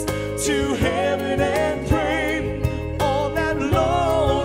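A band playing a slow song live: a male lead voice sings long notes with vibrato, with backing singers, over keyboard, bass and drum hits.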